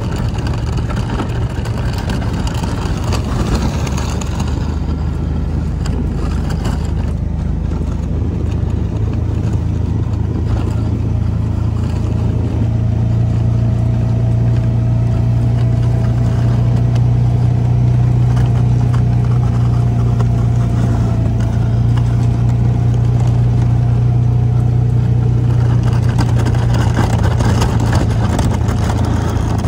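Kawasaki Mule utility vehicle's engine running steadily under way, its hum getting a little louder about twelve seconds in.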